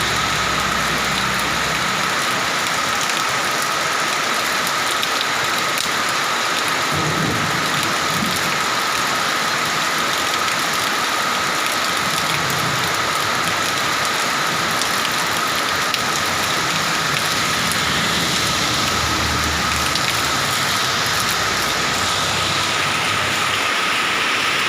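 Heavy rain falling steadily, a dense even hiss of rain on surfaces, with a few faint low rumbles coming and going.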